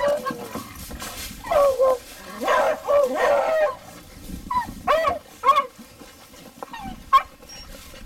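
Beagles yelping and whining as they are let out of a dog box: a few short yelps, a longer drawn-out cry about two and a half seconds in, and a sharp yip near the end.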